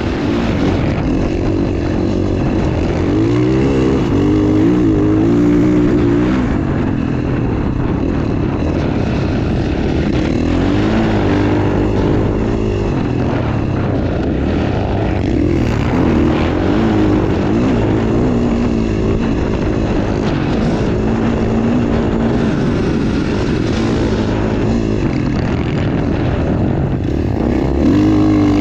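KTM 450 dirt bike's single-cylinder four-stroke engine revving under hard riding, its pitch rising and falling again and again as the throttle is worked, over a steady rush of noise.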